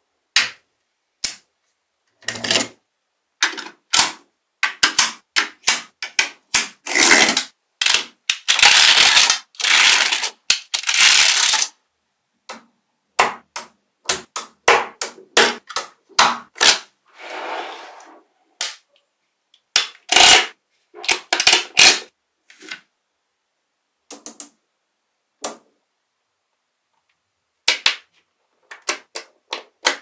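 Small metal magnetic balls clicking and clacking as slabs of them are snapped onto a model and pressed into place, in irregular bursts with a dense run of rattling clatter about a third of the way through.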